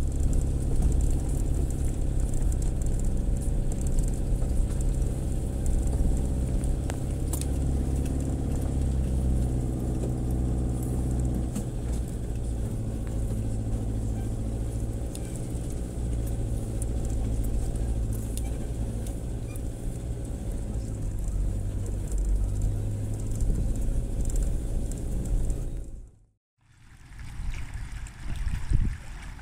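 Toyota Hilux engine running under load as the truck crawls along a rough dirt track, heard close from a camera mounted on the front of the truck. The engine note shifts a few times, with occasional knocks over the bumps. Near the end the sound cuts to a quieter outdoor recording with wind and water.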